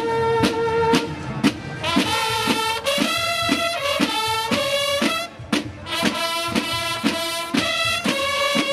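Brass-led music: horns hold and move between sustained notes over a steady beat of about two hits a second.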